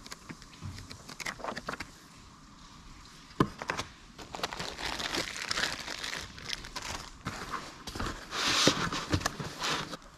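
Plastic packaging crinkling and rustling as a bagged wiring harness and a plastic-wrapped car radio unit are handled and unwrapped. Scattered clicks and a sharp knock come about a third of the way in, and the crinkling is heaviest near the end.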